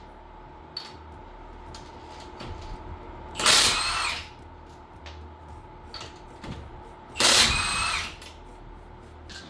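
Milwaukee cordless impact wrench hammering in two short bursts, one about three and a half seconds in and one about seven seconds in, loosening the wheel lug nuts.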